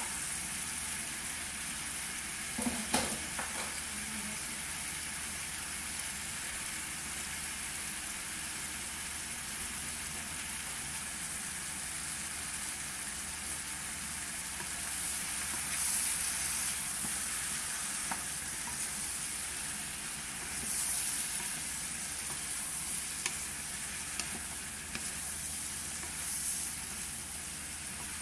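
Shell-on shrimp sizzling as they fry in a nonstick pan, stirred with a wooden spatula. A brief knock about three seconds in, and the sizzle swells several times in the second half as the pan is stirred.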